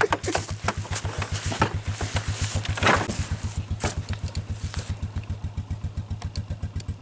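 Engine idling with a steady, rapid chug, with a few brief knocks or clicks over it.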